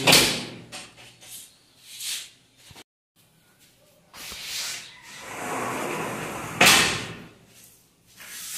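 Sashes of a black aluminium three-track sliding window being slid along their tracks: short rolling, rubbing runs, with a sharp knock at the start and another, loud one about six and a half seconds in.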